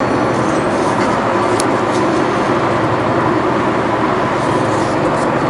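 Steady engine drone and road noise inside a van's cabin while it drives along the road, with one short click about a second and a half in.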